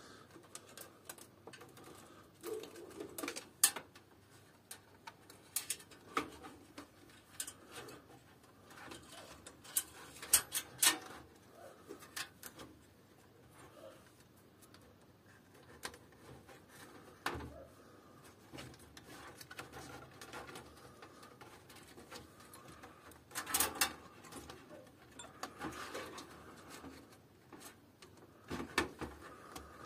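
Scattered clicks, taps and rustling of hands working inside a steel computer case, handling plastic cables and a zip tie, with a few sharper clicks clustered now and then.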